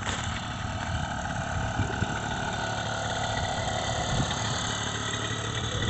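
Small paramotor trike engine running at a steady idle.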